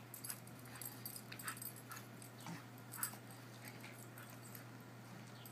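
Faint sounds of a small dog playing on a lawn: short, scattered noises as it runs about, over a steady low hum.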